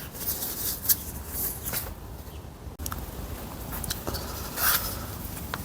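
Light clicks, taps and scraping of metal gearbox parts being handled, with a sharper click about a second in and a brief scrape near the end.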